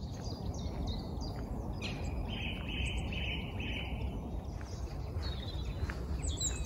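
Songbirds singing, with short high notes throughout and one bird repeating a clear note about four times in a row about two seconds in, over a steady low background rumble.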